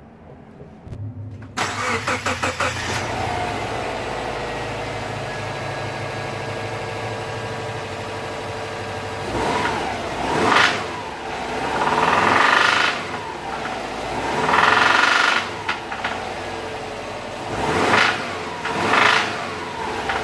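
2009 Subaru Forester XT's turbocharged EJ255 flat-four engine cranked over briefly and started, settling to a steady idle, then revved up several times in the second half. This engine has developed a knock, which the owner takes for rod knock.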